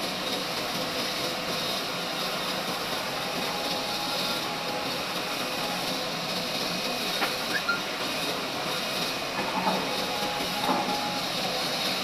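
Log band sawmill running steadily, a constant mechanical hum with faint steady whining tones. A few light knocks come in the second half.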